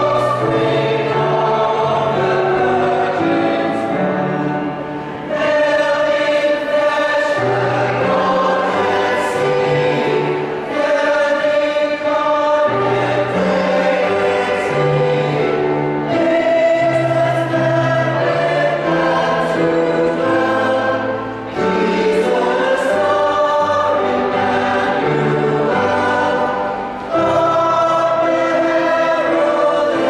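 Mixed choir of men and women singing a Christmas carol in harmony, with short breaks between phrases.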